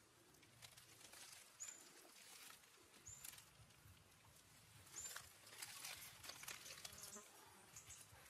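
Faint rustling and light ticks, with a short high chirp three times, about a second and a half apart.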